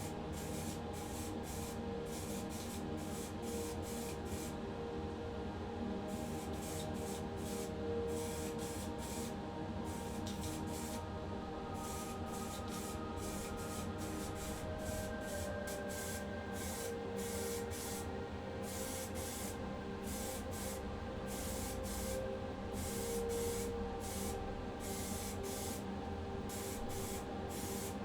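Primer paint being sprayed in many short, irregular bursts of hissing spray, starting and stopping every second or so.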